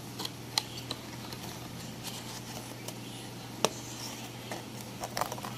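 White cardboard box being handled and slid open: scattered clicks and light scrapes of card on card, the sharpest a little past the middle and a quick cluster near the end, over a steady low hum.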